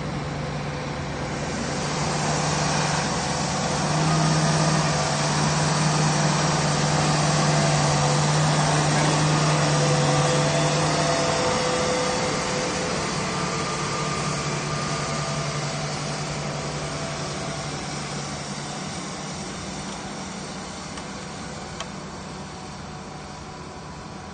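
Diesel engines of large farm tractors, a Fendt 930 and a John Deere 8335R, running under load while pulling reversible ploughs through the soil. A steady drone that swells as one tractor passes close during the first half, then slowly fades as it moves away.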